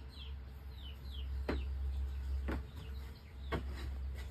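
Chickens in the background: a short cluck about once a second over quick, high, falling chirps repeating about twice a second, with a steady low hum underneath.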